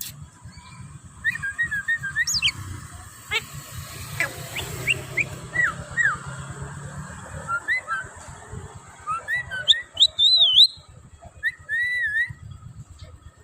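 Javan myna (jalak kebo) calling: a string of short whistled notes and chirps, many sliding up or down in pitch, loudest near the end.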